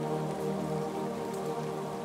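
Slow ambient music of steady, held chords over an even hiss.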